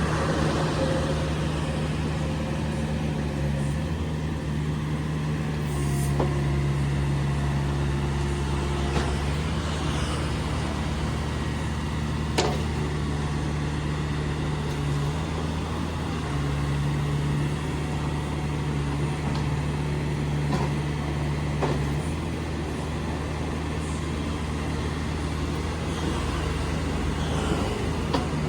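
Komatsu PC45MR-1 mini excavator's diesel engine running steadily under working load, its note shifting in strength every few seconds as the hydraulics are worked, with a few sharp metallic knocks, the loudest about halfway through.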